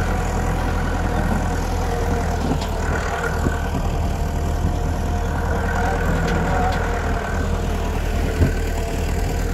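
Farm tractor engine running steadily as it tows a wooden trailer, with one sharp knock near the end.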